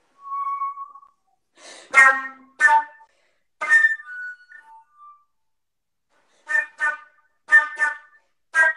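Solo flute playing contemporary music: a soft held note, then short, sharply attacked, breathy notes, several in quick pairs a third of a second apart near the end.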